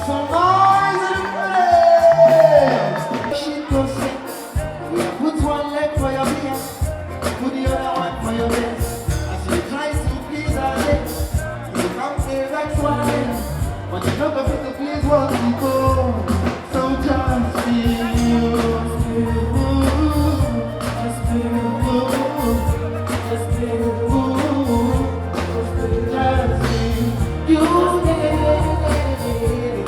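Loud party music with a singing voice over a steady drum beat.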